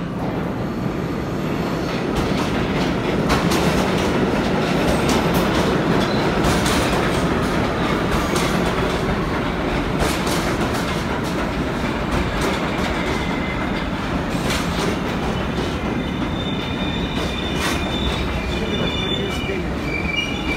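New York City subway train running through an underground station: a steady heavy rumble with occasional sharp clacks from the rails. High-pitched wheel squeal joins in during the last few seconds.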